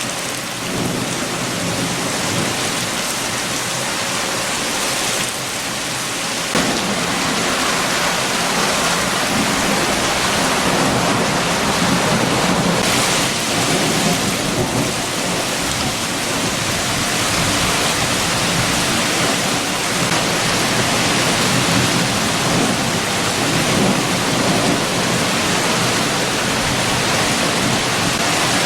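Heavy rain falling steadily, with strong wind, as a dense, even hiss.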